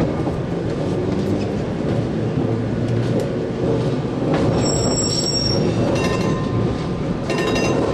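Gotha T2-62 two-axle tramcar running along street track, heard from inside: a steady rumble of wheels and motor, with brief high-pitched squeals from the wheels on the rails about halfway through and again near the end.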